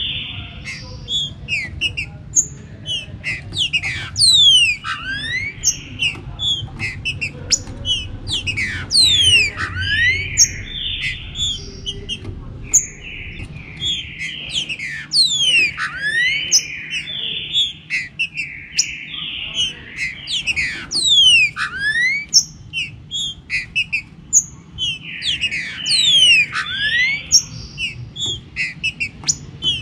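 Green-winged saltators (trinca-ferro) singing amid a dense mix of bird calls: whistled phrases and many quick sweeping chirps overlap throughout. A low rumble runs underneath.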